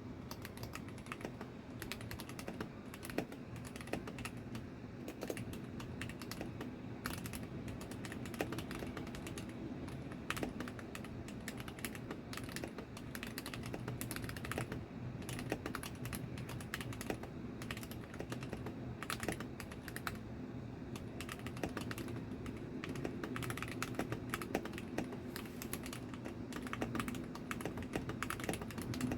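Continuous fast typing on a 60% mechanical keyboard with TTC Gold Pink linear switches and no case foam: a dense stream of keystroke clacks with a few louder strokes.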